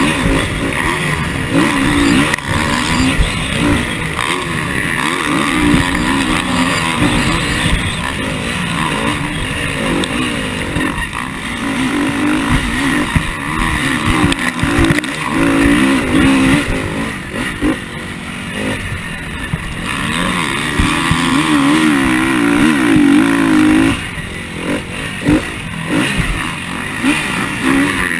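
KTM motocross bike's engine heard close up from the bike as it is ridden hard over a dirt track, the engine note rising and falling again and again with the throttle. It eases off for a moment about three-quarters of the way through, then picks up again.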